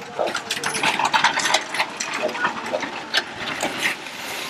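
A small engine running on a shed-moving machine, with a dense, irregular mechanical clatter and clicking over a low hum.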